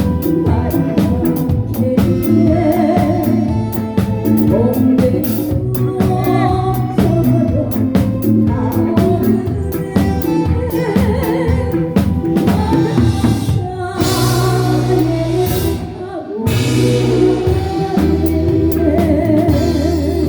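Live band playing an instrumental interlude of a trot song, with drum kit, bass guitar and a wavering melodic lead over a steady beat. The music briefly drops back about 16 seconds in.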